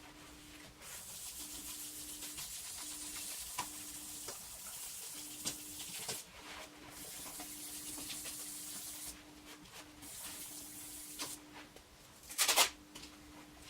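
Sandpaper rubbing over a plastic headlight lens to cut away the yellowed, cloudy surface, a steady hiss in long spells with short pauses. A short loud burst near the end.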